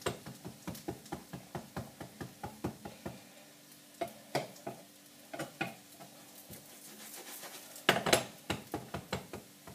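Quick taps and scrapes of a metal skimmer against a frying pan while a Spanish potato omelette cooks on its second side, over a faint sizzle. There is a rapid run of taps at first, a few scattered ones in the middle and another short flurry near the end.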